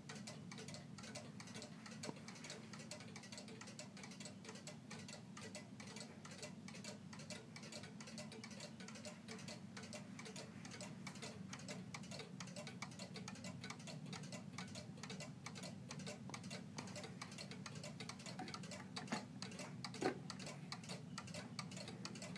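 1977 Emil Schmeckenbecher one-day Black Forest cuckoo clock ticking steadily, a quiet, even tick-tock. A couple of louder knocks come near the end.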